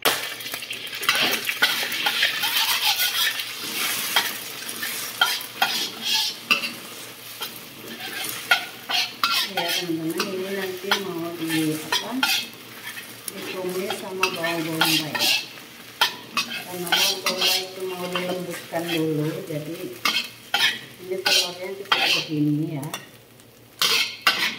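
Beaten egg sizzling in hot oil in a wok, loudest in the first few seconds, then a metal spatula scraping and knocking against the wok many times as the egg is stirred and broken into scrambled pieces.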